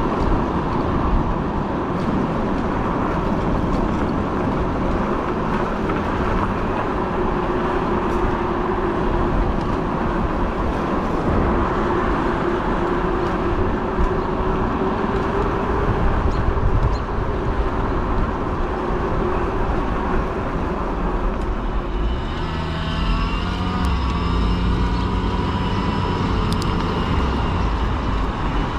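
Riding a fat-tire e-bike: steady wind and road noise with a constant hum. About three-quarters of the way through, several higher whining tones join in.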